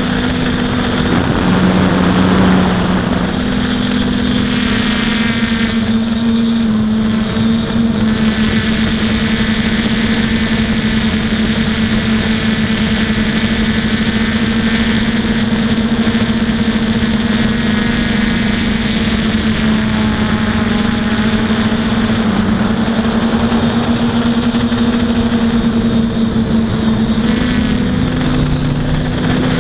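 Aphid X450 quadcopter's electric motors and propellers, heard through its onboard camera: a steady multi-toned whine that shifts slightly in pitch, with its lowest tone dropping near the end.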